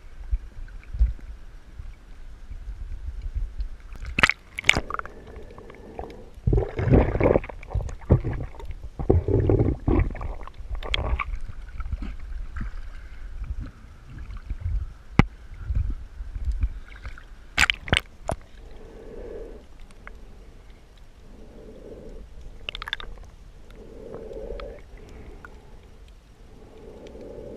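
Water sloshing, gurgling and splashing against a waterproof underwater camera as it bobs at the surface and dips in and out of the water, with sharp knocks and clicks. In the second half it is under water, and the sound turns muffled, with low pulses every two or three seconds.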